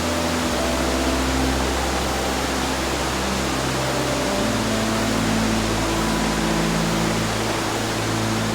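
Steady rush of flowing mountain-stream water. Underneath it runs a soft, low sustained musical drone that changes chord about half a second in and again about four seconds in.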